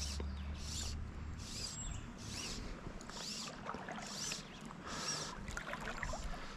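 Fly line being stripped in by hand through the rod guides, a rhythmic swish about every three-quarters of a second as the fly is retrieved.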